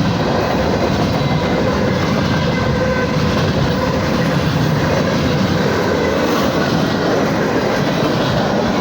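Manifest freight train rolling past, with a steady, loud rumble and clatter of steel wheels on the rails.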